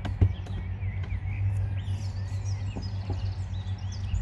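Songbirds chirping and twittering over a steady low hum, with one sharp click about a quarter second in as the teardrop caravan's door latch is opened.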